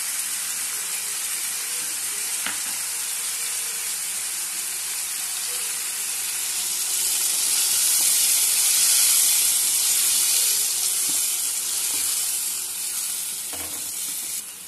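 Raw plantain pieces and tomato-onion masala sizzling in a hot pan, with a steady hiss that swells louder around the middle as water goes in to cook them. A wooden spatula knocks against the pan a couple of times while stirring.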